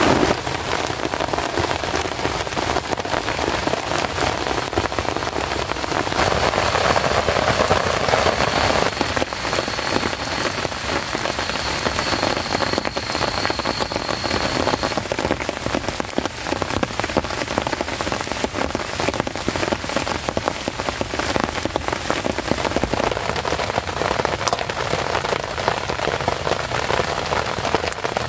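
Heavy rain falling steadily, a dense hiss of many drops striking close by.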